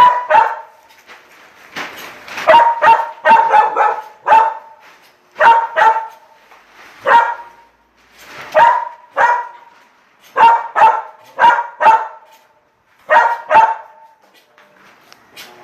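A female dog barking at a washing machine: short, sharp barks come in quick bursts of two to four, with brief pauses between the bursts.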